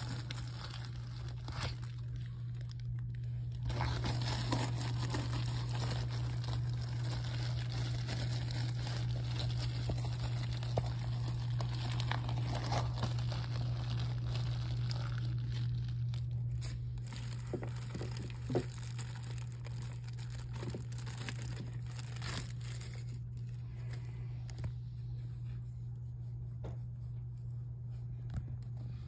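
Rustling and crinkling in loose paper bedding with scattered small clicks, busiest in the first half, over a steady low hum.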